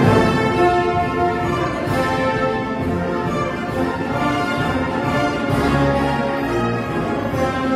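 Military wind band playing a festive march, brass carrying sustained notes.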